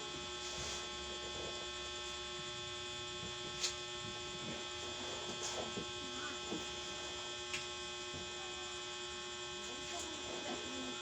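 Steady electrical hum made of many fixed tones, with a few faint sharp clicks, the clearest nearly four seconds in.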